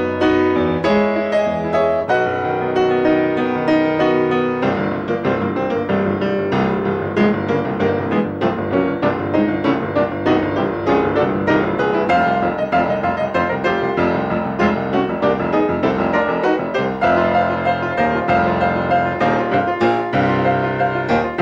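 Piano music accompanying a silent film, turning to busier, quicker playing about four and a half seconds in.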